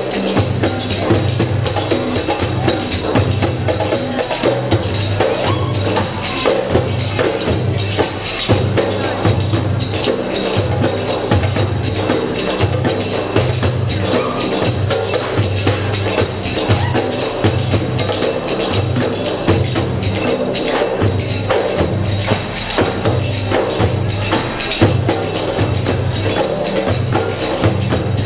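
Music with a steady low drum beat, about two beats a second, under dense percussion.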